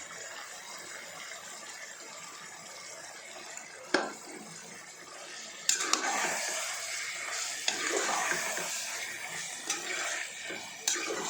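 Washed raw prawns going into a pan of frying onion-tomato masala. A steady sizzle, a single knock about 4 seconds in, then a louder wet sizzling hiss that starts abruptly just past halfway, with a few clinks.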